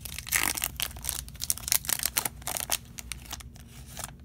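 Foil wrapper of a Bowman baseball card pack crinkling and tearing as it is opened and the cards are taken out, a run of irregular crackles that dies away near the end.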